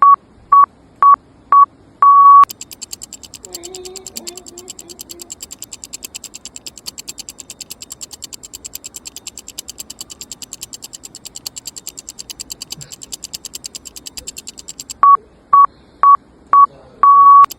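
An electronic beeper sounds four short beeps and then a longer one, at the start and again near the end. Between the two beep runs, a rapid, even mechanical clicking runs, and it stops while the beeper sounds.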